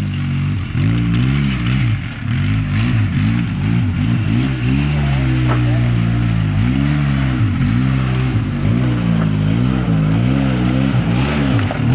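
A 700-class ATV engine running hard and revving up and down over and over, its pitch rising and falling every second or two, as the machine churns through snow.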